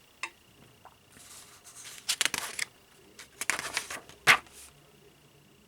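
Paper pages of a model-kit instruction booklet being handled and turned: three short rustles and a sharp click near the end.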